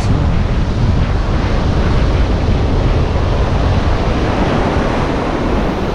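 Wind buffeting the microphone over the steady wash of surf breaking on the beach: a loud, even rushing with a heavy low rumble.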